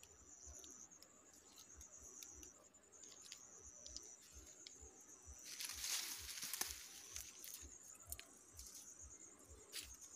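Faint rustling and crackling of ripe rice stalks being brushed aside by someone moving through the paddy, loudest about six seconds in, over a steady high insect trill.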